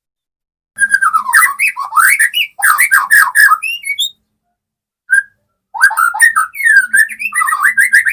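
Young white-rumped shama (murai batu) singing loudly in fast, varied warbling phrases with quick up-and-down sweeps: a long burst, a short note about five seconds in, then another long burst. A young bird coming into full song, singing with vigour (ngotot).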